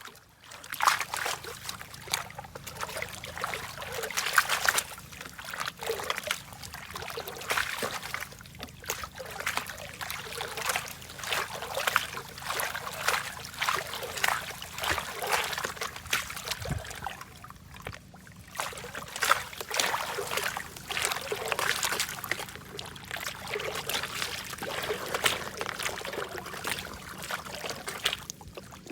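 Water sloshing and splashing in a gold pan as river sand is washed, in many quick, irregular splashes with brief pauses.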